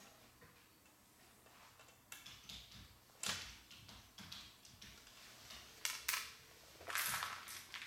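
Parts of a Rube Goldberg construction kit being handled and clicked together: a scatter of sharp clicks and clacks, the loudest about three seconds in, a pair around six seconds, and a short rattle about seven seconds in.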